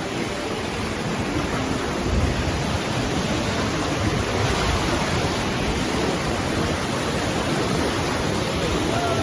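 Rushing river whitewater, a steady loud wash of water noise with no distinct events.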